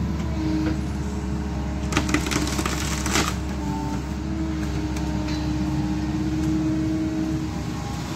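Kobelco SK135SR excavator's diesel engine running steadily with a held whine, while its Westtech Woodcracker C350 felling shear works a tree. Sharp wood cracks and splintering come about two seconds in and again about three seconds in.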